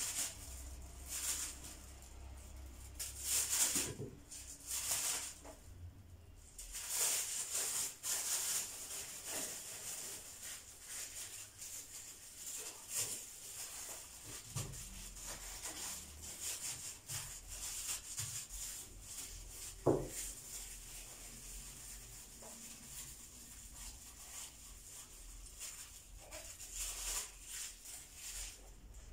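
Clear plastic bag crinkling and rustling in irregular bursts as it is handled and filled with sliced oranges, with a single knock about two-thirds of the way through.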